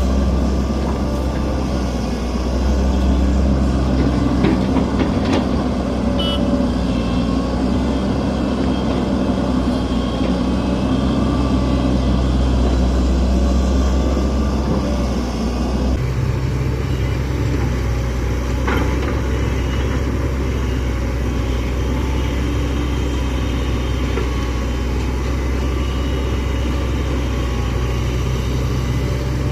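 Diesel engine of a Hitachi hydraulic excavator running steadily while it works. Its note changes abruptly about halfway through.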